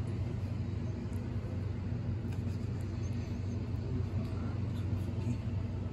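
Steady low hum and rumble, with a few faint light clicks.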